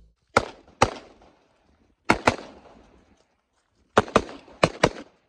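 Gunshots fired on a competition shooting stage: two single shots about half a second apart, a quick pair about two seconds in, then four more in two quick pairs near the end.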